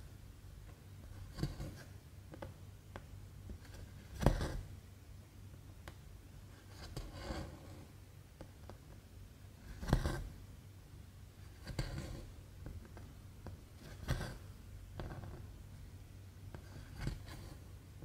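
Cross-stitch needle and cotton thread going through 14-count Aida cloth: a short scratchy rasp as the stitch is pushed and pulled through, repeating every one to three seconds, a couple of them louder. A faint steady low hum lies underneath.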